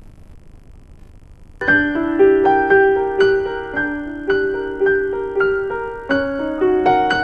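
Piano music starts suddenly about a second and a half in. Notes are struck in a steady, repeating pattern, about two a second, each ringing on as it fades. Before it there is only a faint hiss.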